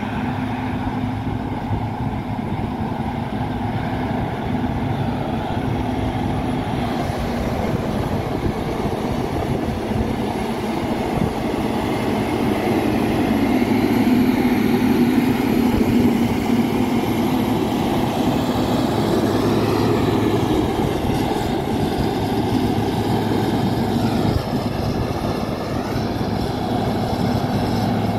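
Caterpillar 140K motor grader's diesel engine running steadily under load while its blade cuts and spreads gravel. It grows louder midway as the machine passes close.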